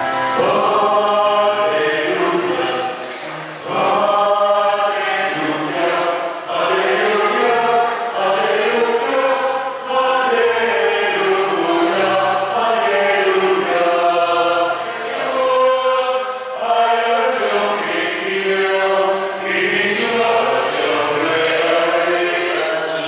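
A choir singing a hymn in phrases, with short pauses about three and a half seconds in and again about two-thirds of the way through.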